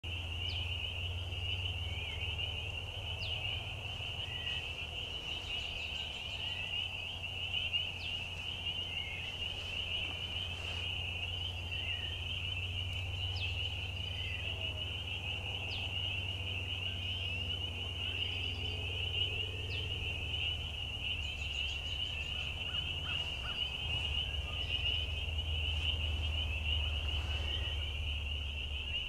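A dense chorus of frogs calling together in an unbroken high-pitched ring, with a few separate short chirps standing out. A steady low rumble runs underneath.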